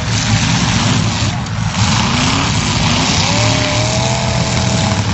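Demolition derby cars' engines running and revving loudly, with a tone that rises and holds from about three seconds in.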